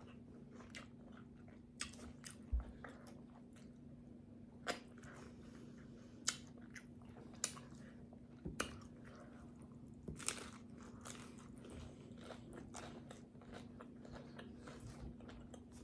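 A person chewing tacos, with faint crunches and mouth smacks every second or two over a faint steady hum.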